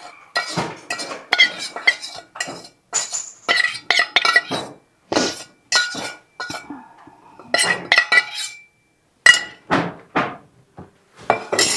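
Kitchen utensils and dishes clinking: an irregular run of sharp clinks, some of them ringing briefly.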